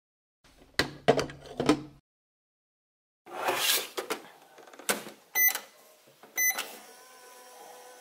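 Plastic toy microwave in use: a glass set inside with a few light clicks and knocks, the plastic door shut, then two short electronic beeps about a second apart from its keypad. From about seven seconds in, the toy's faint steady electronic running hum begins.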